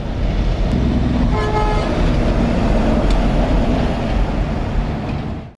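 Car-carrier semi truck driving past, a steady low engine and road rumble. A short horn toot sounds about a second and a half in.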